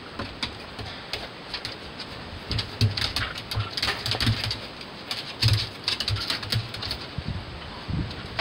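Beagles wrestling on a wooden dog house top: irregular scrabbling and thumping of paws on the boards, busiest and loudest in the middle stretch.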